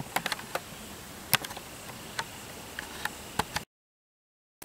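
Scrap pallet wood crackling as it burns in a SilverFire Hunter biomass stove that is still heating up: sparse, irregular sharp pops and ticks. The sound cuts off abruptly about three and a half seconds in.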